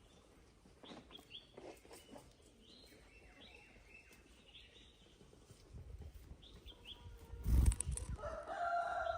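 Short high chirps from Java sparrows, scattered through the first half. A loud thump comes about seven and a half seconds in. Near the end a rooster begins a long crow.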